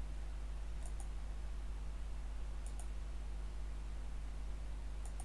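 Computer mouse clicks: three click pairs about two seconds apart, each a quick press and release. Under them is a steady low electrical hum.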